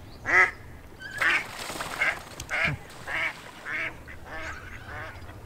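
A female mallard quacking repeatedly: about eight quacks in a row, each fainter than the last. A brief splash of water comes about a second in, as another duck chases her off.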